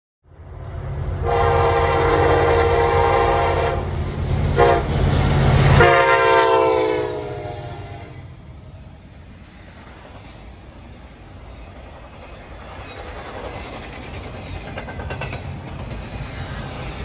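Norfolk Southern SD70ACe diesel locomotive passing close, its engine rumbling and its horn sounding a long blast, a short one, then a long one that drops in pitch as the locomotive goes by. After that the intermodal container cars roll past with wheels clicking on the rails, growing a little louder near the end.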